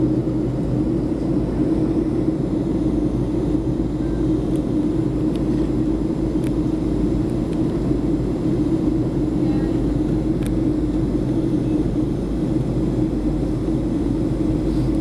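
Steady cabin noise inside a Boeing 737 airliner coming down to land: a constant drone of the jet engines and the air rushing past the fuselage, with a low hum that never changes.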